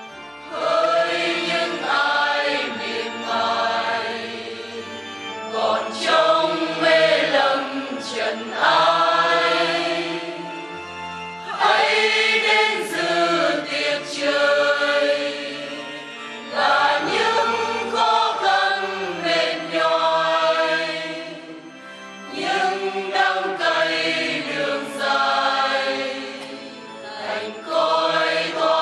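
Parish choir singing a hymn during communion. The singing comes in phrases of a few seconds, with short dips between them.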